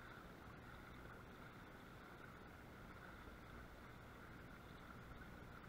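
Near silence: a faint, steady hum with no distinct events.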